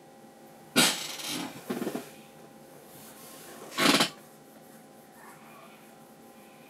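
Juvenile Australian magpies giving harsh, loud begging squawks for food. A long rasping call comes about a second in and breaks into a stutter, then a shorter squawk follows about three seconds later.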